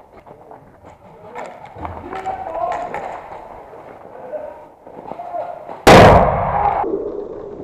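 A single loud explosive bang about six seconds in, sudden and covering every pitch, then ringing out for about a second.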